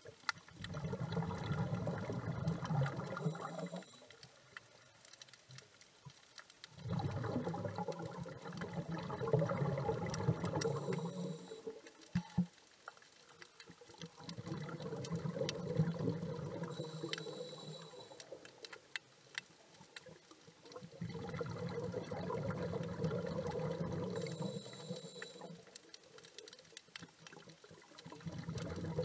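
A scuba diver breathing through a regulator underwater: each exhalation is a bubbling burst lasting three to four seconds, followed by a short hissing inhalation. The cycle repeats about every seven seconds, four times over.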